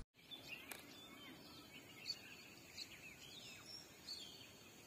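Faint birds chirping, scattered short rising and falling calls, over quiet outdoor background noise.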